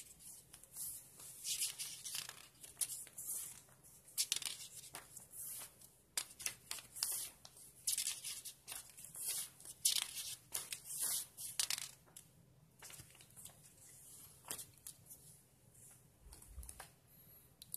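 Pages of a small paper user-guide booklet being turned and handled: a string of short, crisp paper rustles, frequent through the first twelve seconds and more scattered after that.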